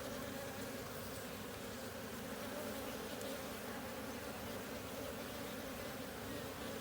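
Honeybees buzzing steadily around an open hive during an inspection, a continuous hum of many wingbeats.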